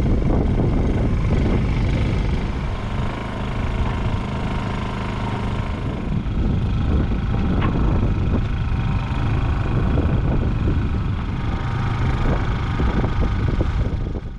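Honda EU2000i portable inverter generator running steadily, powering the boat's battery chargers.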